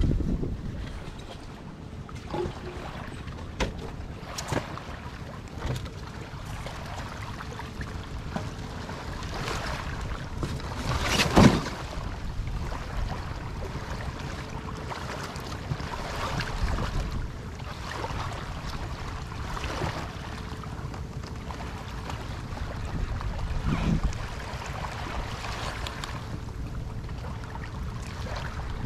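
Wind rumbling on the microphone over sea surf, with scattered knocks and clatters, the loudest about eleven and a half seconds in.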